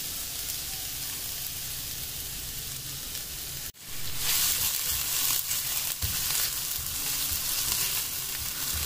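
Chopped onions sizzling in hot oil in a non-stick frying pan. From about four seconds in, a silicone spatula stirs them and the sizzle gets louder.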